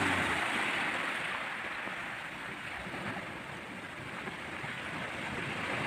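Sea surf breaking and washing up over a stony, pebbly shore: a steady rush of waves that eases off through the middle and swells again near the end.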